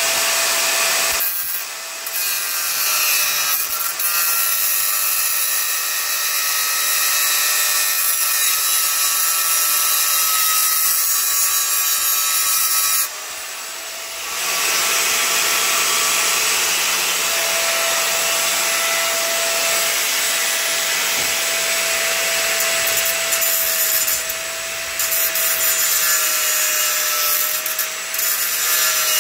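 Angle grinder running and cutting into a pushchair's metal tube frame: a steady high motor whine over harsh grinding noise. It eases off briefly a few times, with a gap of about a second midway.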